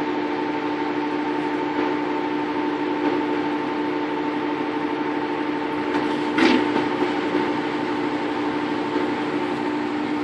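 Waveforce 14 kg top-loading washing machine on its spin stage, the basket turning at speed: a steady motor whine of several held tones over a rushing hum. There is one brief knock about six and a half seconds in.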